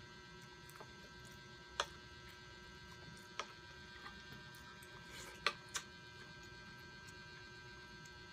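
Quiet eating at a table over a steady background hum: four short, sharp clicks of eating, with two close together past the middle.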